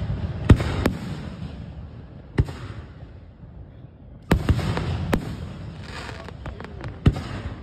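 Aerial firework shells bursting overhead: about six sharp bangs with a low rumble between them, a quieter lull in the middle, and a patter of crackling stars shortly before the last bang.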